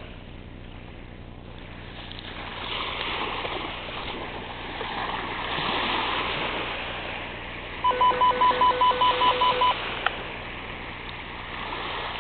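Splashing water as a dog swims out through the shallows, then a rapid run of loud walkie-talkie call-alert beeps for about two seconds, signalling an incoming call, followed by a single click.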